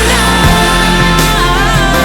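Background rock music with a singing voice, loud and steady.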